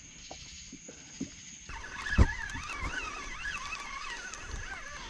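Night insects chirring steadily on one high note. A single thump comes about two seconds in, followed by a wavering high whine lasting about three seconds.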